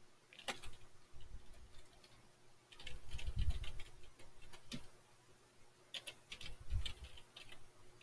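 Keys on a computer keyboard being typed, quiet clicks coming in short irregular bursts with brief pauses between them.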